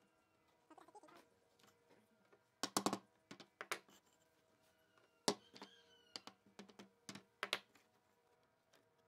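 Faint, irregular sharp clicks and taps of wood on wood as thin pine slats are pressed by hand into the notched slots of a lattice frame, with a quick cluster about three seconds in and single knocks later.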